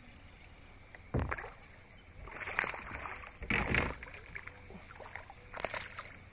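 A small bass splashing at the surface as it is reeled in beside a kayak: several short bursts of splashing, with a dull thump about a second in.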